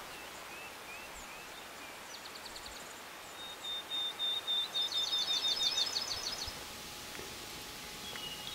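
Dark-eyed junco singing a trill of quick notes on one steady pitch, lasting about three seconds from about three and a half seconds in, over a steady background hiss. Other birds give short chirps and a shorter rapid trill before it, and a higher, faster trill overlaps its second half.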